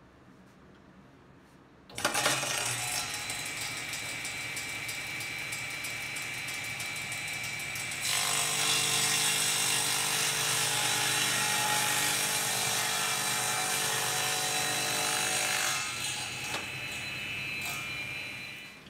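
Table saw switched on about two seconds in and running steadily. From about eight to sixteen seconds it grows louder as the blade cuts through the glued-up hardwood cutting board, held on a cross-cut sled at a 20-degree angle. It then runs free again and shuts off near the end.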